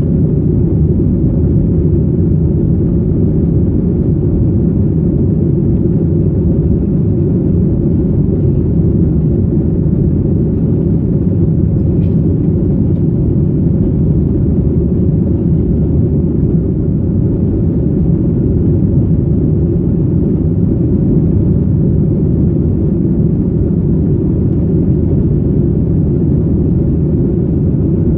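Steady low rumble inside the cabin of a Boeing 737-800 in the climb: its CFM56 jet engines and the airflow over the fuselage, heard from a window seat over the wing, with a faint steady hum above the rumble.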